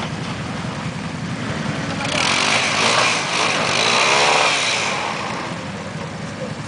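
ATV engine running and revving up, its pitch rising and falling, as the quad drops into a mud pit. The wheels churn and splash through mud and water, adding a loud rushing hiss for a few seconds in the middle.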